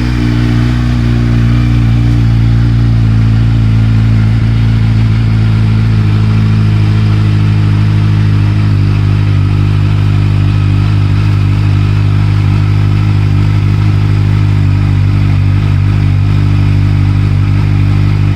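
2021 Kawasaki Z900's inline-four engine running steadily at idle through a freshly fitted Arrow Pro Race titanium slip-on exhaust with its DB killer in place, a loud, even note that steps up slightly about half a second in.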